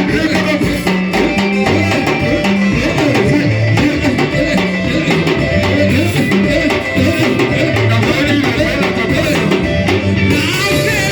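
Instrumental band music with a pulsing bass line, drums and guitar. A voice begins singing near the end.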